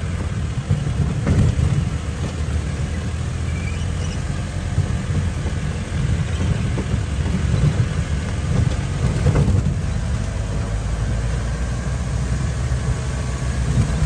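An old Mahindra 4x4 jeep's engine runs steadily as the jeep drives over a rough dirt track, heard from inside the cab as a continuous low rumble. There is a single knock about two-thirds of the way through.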